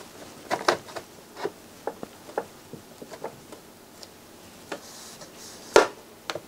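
Irregular light clicks and knocks as a cover panel is handled and seated over the drive compartment of a CD transport, with the loudest knock near the end.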